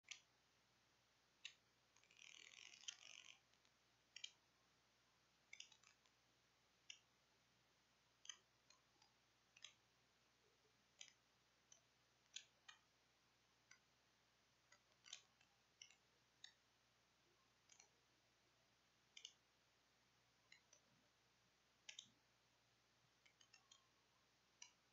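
Near silence broken by faint, sharp clicks at irregular intervals, roughly one a second, with a brief rustle about two seconds in.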